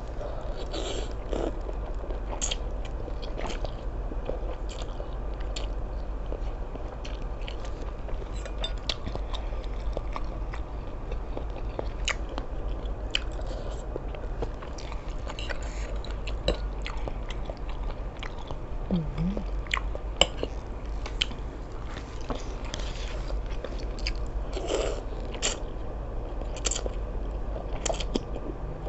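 Close-miked chewing and biting of seafood, egg-laden squid from a seafood suki: many short sharp clicks and wet mouth sounds over a steady low hum, with a brief hum from the eater about two-thirds of the way in.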